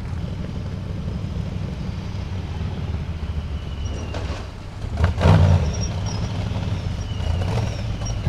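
Formula Offroad buggy's engine running hard under load as it climbs a steep sand bank on paddle tyres, with a sudden louder surge about five seconds in.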